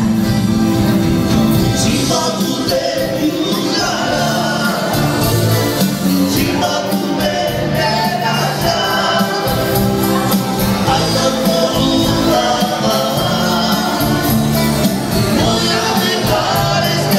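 Lively Romani wedding band music with singing over a steady dance beat, played loud without a break.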